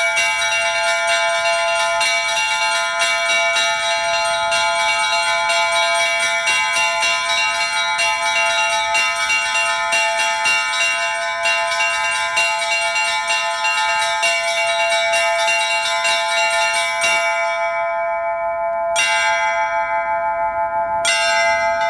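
Orthodox church bells ringing a fast, dense peal of many bells struck together. About seventeen seconds in, the quick strokes stop and the bells ring on, with two single strokes a couple of seconds apart near the end.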